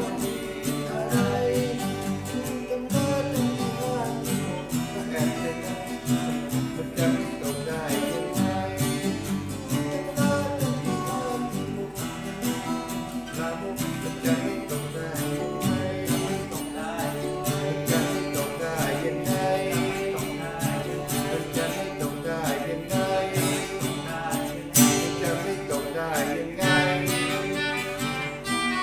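Two acoustic guitars strumming and picking a song, with an Aria FEB-30M acoustic-electric bass guitar playing the bass line under them. Near the end a melodica comes in with sustained notes over the guitars.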